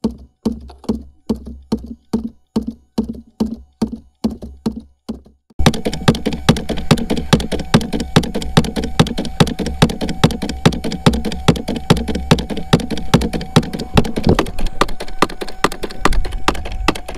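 A DIY scrap-aluminum fish thumper knocking steadily against the kayak hull, about three knocks a second, to draw white bass. About five and a half seconds in, a louder steady hum and a low rush suddenly join in, and the knocking goes on underneath them.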